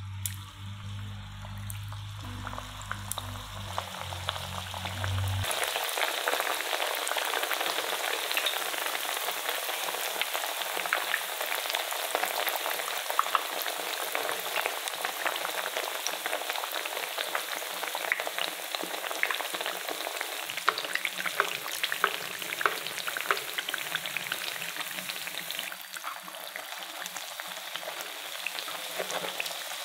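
Cornstarch-coated mashed-potato patties frying in hot oil in a pan: a dense sizzle full of sharp crackles and pops. The sizzle starts abruptly about five seconds in, after a low hum.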